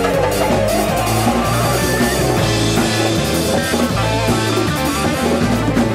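Live rock band playing an instrumental passage: electric guitar, electric bass and drum kit together at a steady, loud level.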